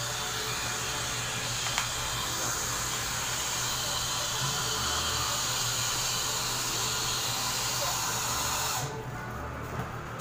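A steady hiss that cuts off suddenly near the end.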